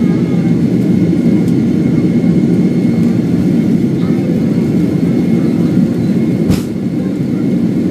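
Boeing 767 jet engines and airflow heard from inside the passenger cabin during takeoff and climb: a steady low roar with a thin steady whine above it. A single sharp knock comes about two-thirds of the way through.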